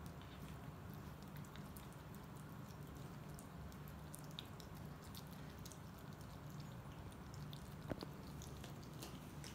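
Cats chewing raw beef chunks from ceramic bowls: faint wet chewing with many small clicks, and one sharper knock about eight seconds in.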